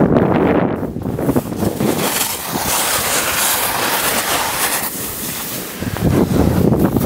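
Skis sliding and scraping over snow during a downhill run, with wind rushing over the microphone. A low, rough rumble near the start gives way to a bright hiss in the middle, and the rumble returns near the end.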